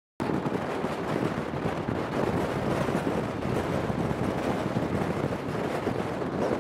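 Wind buffeting a microphone held out of the window of a moving train, over the train's steady running noise on the rails. The sound cuts in abruptly just after silence.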